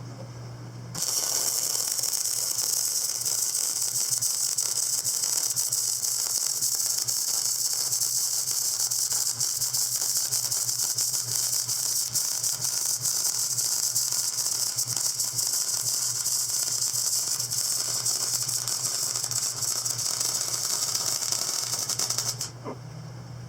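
MIG welder laying a continuous weld bead: a steady, loud crackling hiss that starts abruptly about a second in and cuts off sharply near the end.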